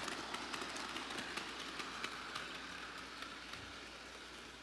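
Bachmann model train of Edward running on its track: a faint, steady motor whir with many light, irregular clicks of wheels over the rail joints.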